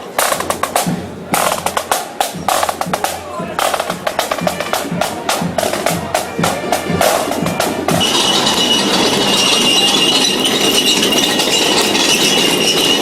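Procession drums playing: rapid snare drum strokes and rolls over bass drum beats. About eight seconds in, this gives way abruptly to a steady noisy din with a high ringing tone.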